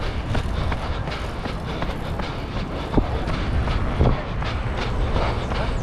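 Motion and wind noise on a GoPro Hero 8 Black's microphone during a run: a steady low rumble with scattered clicks and a couple of heavier knocks from footfalls, about three and four seconds in.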